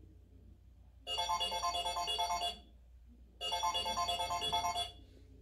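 Smartphone ringtone ringing for an incoming call: a quick, repeating electronic tune sounds twice, each time for about a second and a half with a short pause between.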